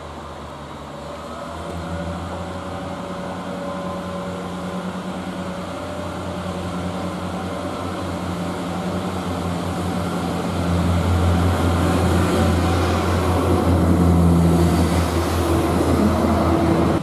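Class 142 Pacer diesel multiple unit pulling away, its underfloor diesel engine a steady low throb that grows louder as the train draws nearer, with a step up about ten seconds in.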